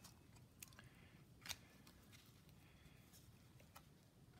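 Near silence with a few faint clicks and light rustles of baseball cards being handled, the clearest click about a second and a half in.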